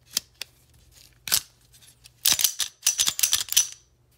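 A pistol slide being fitted back onto an SS80 (Polymer80 single-stack, Glock 43-pattern) frame: a few sharp clicks, then nearly two seconds of rapid clicking and scraping as the slide is worked along the frame rails.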